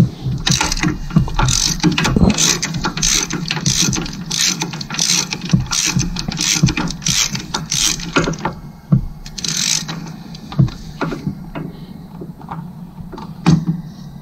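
Ratchet wrench with a 19 mm socket clicking through short, even strokes, about two a second, as it turns a fitting on the engine; in the last few seconds the strokes turn slower and scattered.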